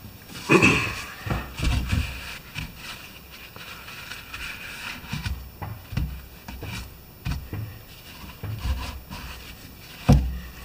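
Paper towel rubbing and wiping thick grease out of an opened lawn tractor transaxle housing, with irregular scraping and light handling knocks, and a couple of sharper knocks near the end.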